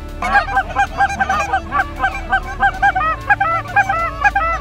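A flock of Canada geese honking, with many overlapping calls a few times a second that start just after the beginning and go on without a break.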